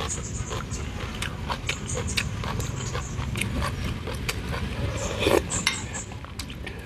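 Close-up eating sounds: a person slurping hot pot soup from a spoon and chewing, with short clicks of a metal spoon against a ceramic bowl. The loudest slurp comes a little past five seconds in.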